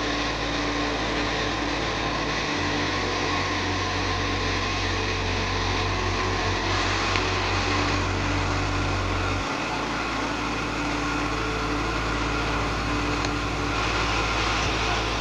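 Pot of fresh rice noodles at a rolling boil, a steady bubbling hiss over a low hum; the hum changes about two and a half seconds in and again near ten seconds.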